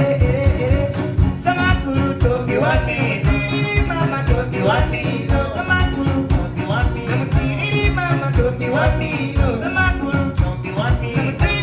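Live acoustic band music: male voices singing over homemade instruments and hand percussion keeping a steady, even beat.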